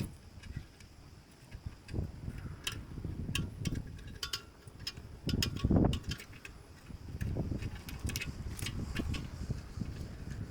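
Hand-tool work on metal: scattered light metallic clicks and ticks in short clusters over low handling knocks, with one heavier dull thump about six seconds in.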